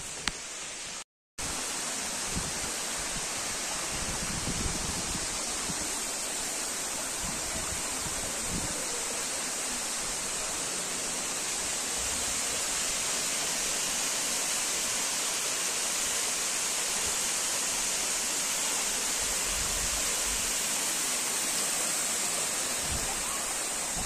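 Steady rush of a waterfall's stream running over rock ledges. The sound drops out completely for a moment about a second in.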